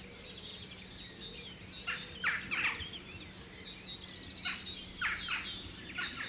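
Dawn chorus: many birds singing at once in a dense, overlapping tangle of high song. Loud, sharp, falling calls cut through in clusters, about two seconds in and again over the last two seconds.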